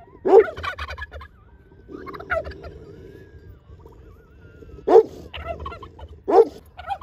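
Domestic tom turkey, puffed up in strut display, gobbling four times in quick warbling bursts, the second one softer.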